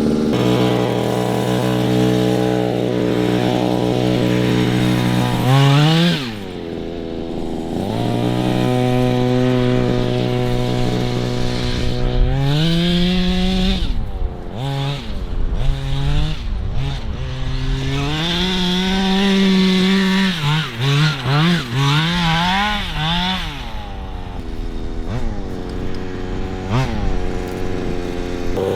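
Two-stroke gas engine of a Redcat 1/5-scale truck idling, then revved up several times with a run of quick throttle blips. The engine's tune is still off.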